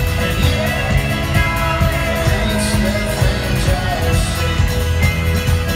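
Live folk-rock band playing an instrumental passage, with plucked upright double bass, grand piano and guitar over a steady beat, heard from the audience in an arena.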